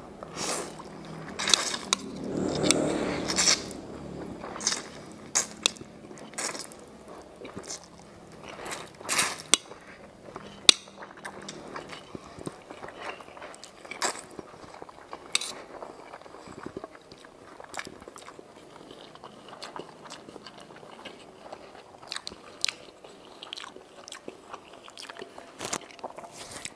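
A man eating egg noodles (mie ayam) close to the microphone: slurping noodles into his mouth and chewing, with many short wet clicks and smacks that are busier and louder in the first half.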